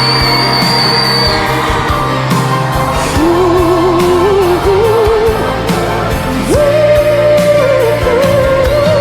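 A male singer's pop ballad playing over instrumental backing. The voice comes in about three seconds in with a wide vibrato, climbs in steps, and leaps to a higher held note about six and a half seconds in.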